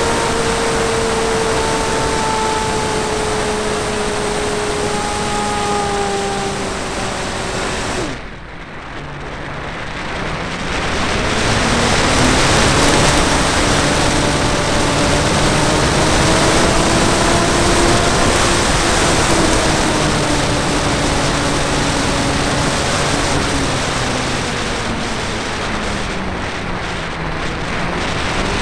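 Rush of air over a flying wing's onboard camera in flight, with the whine of its motor and propeller wandering in pitch. About eight seconds in, the motor drops away and the sound goes briefly quieter, then the motor comes back up.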